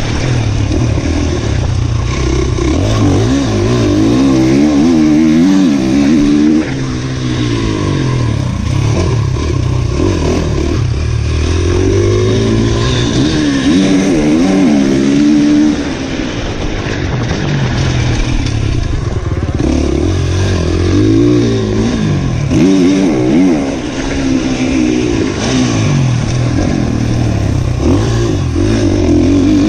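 Motocross dirt bike engine, heard from on the bike, revving up and dropping off again and again as the rider works the throttle and gears around the dirt track.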